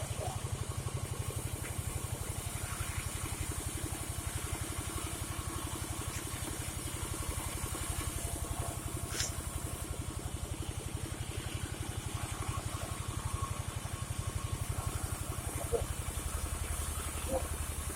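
Engine idling steadily with an even pulse.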